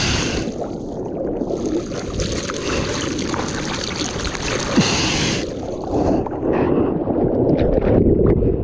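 Seawater rushing and splashing along the sides of a surfboard as it is arm-paddled through the water. Near the end the sound turns duller and choppier, with quick splashes, as whitewater washes over the microphone.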